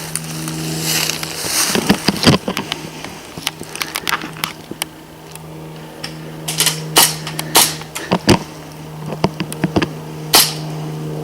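Airsoft gunfire: irregular sharp pops of shots and BB hits, a few of them much louder, over a steady low buzz.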